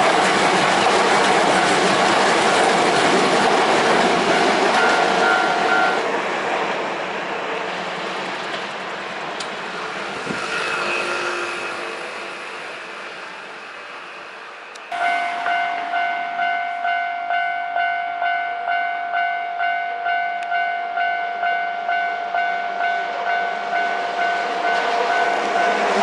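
Hankyu electric train rolling past on the rails for the first six seconds, then fading away. About halfway through, a Japanese level-crossing warning bell starts suddenly, ringing a steady electronic ding about twice a second. The bell signals that the next train is approaching.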